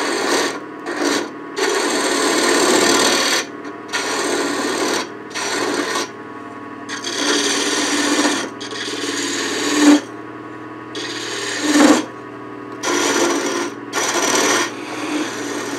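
Spindle gouge cutting into a spinning wooden pepper mill blank on a wood lathe: a series of short cutting passes, each a second or two long with brief pauses between, as the waste at the tailstock end is trimmed down.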